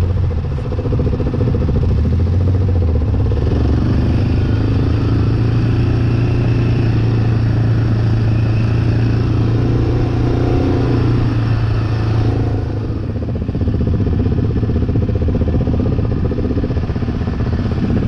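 Off-road vehicle engine, from a quad or side-by-side, running steadily at speed with a strong low drone. The level dips briefly about twelve seconds in, then comes back up.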